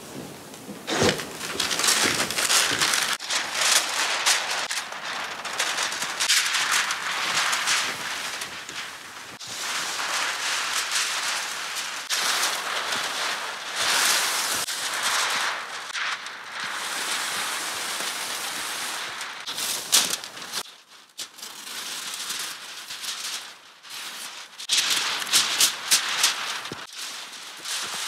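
Tyvek housewrap sheeting crinkling and rustling as it is handled and spread, rising and falling in loudness, with a few sharp clicks.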